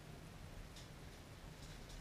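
Steady rain, with a few faint ticks of drops striking about a second in and near the end.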